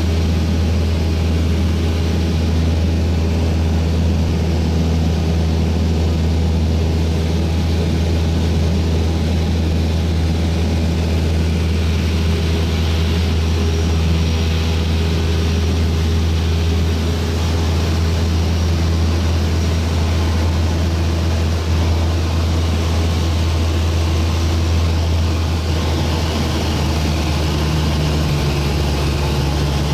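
Cessna light aircraft's piston engine and propeller droning steadily in cruise, heard from inside the cabin, with a constant rush of airflow; the engine note shifts slightly near the end.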